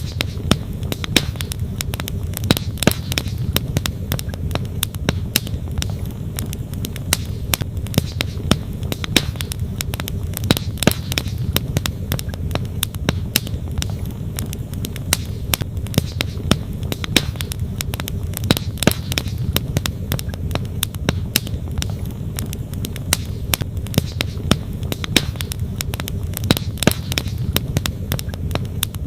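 Wood campfire crackling, with irregular sharp pops several times a second, over the steady rush of a flowing stream.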